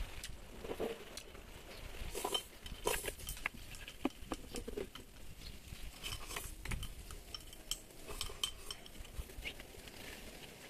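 Eating utensils tapping and scraping against bowls during a meal: irregular light clicks and clinks.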